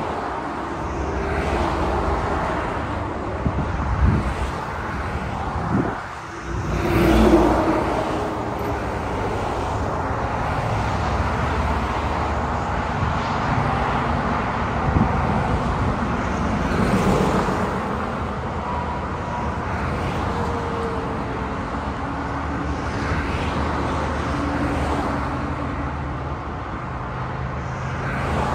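Highway traffic: a steady wash of tyre and engine noise from cars and trucks, swelling as individual vehicles pass close by several times, the loudest about seven seconds in.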